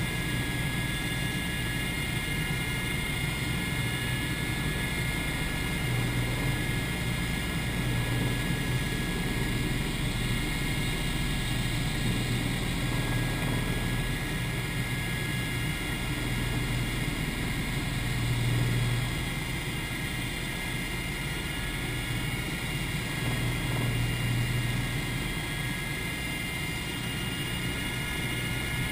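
Cabin noise of a Eurocopter EC120 Colibri helicopter in formation flight: a steady whine of several high tones over a low rotor rumble that swells a little now and then.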